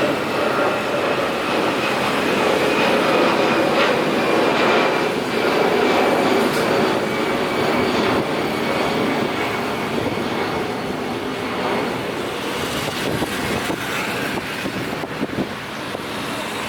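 Departing jet airliner's engines: a steady roar with a faint high whine, slowly fading as the aircraft climbs away.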